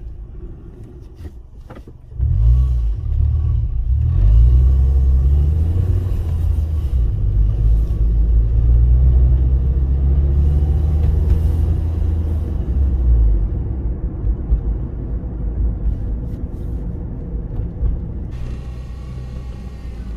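2006 Toyota Yaris engine running, with a loud, low rumble that comes in suddenly about two seconds in, its pitch wavering slightly, and eases off after about thirteen seconds.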